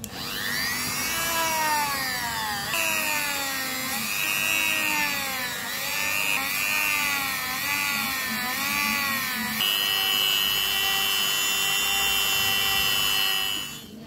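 Handheld rotary tool with a small sanding drum running, sanding the curved edge of a piece of PVC sheet. Its motor whine dips and recovers in pitch again and again as the drum is pressed into the plastic, then holds a steady higher pitch for the last few seconds before stopping near the end.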